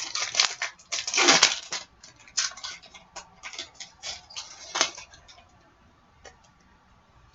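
Foil trading-card pack wrappers crinkling and hockey cards being handled. There are loud crackly rustles in the first two seconds, then lighter rustles and clicks that fade out about five seconds in.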